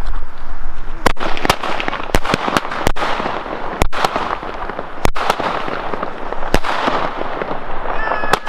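Alba Feuerwerk 'Alpha' mini firework battery firing: about ten sharp bangs at uneven spacing, roughly one a second, over a continuous hiss.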